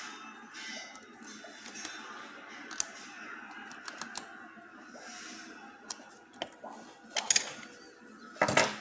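Metal lock picks working in a lock cylinder: small irregular clicks and scrapes of the pick against the pins, with a louder clatter of clicks about seven seconds in and again near the end.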